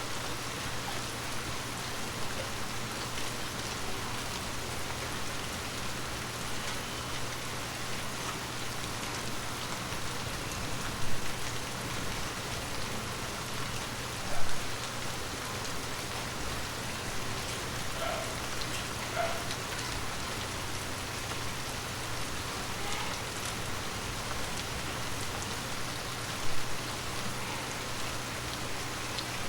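Steady rain falling on forest leaves, an even patter of drops, with a few louder single taps now and then.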